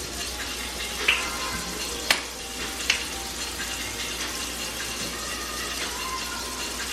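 Water running steadily from a kitchen tap, with three sharp clicks of kitchenware in the first few seconds.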